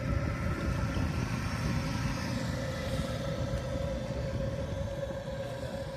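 Wind rumbling on the microphone in gusts, over a steady droning hum.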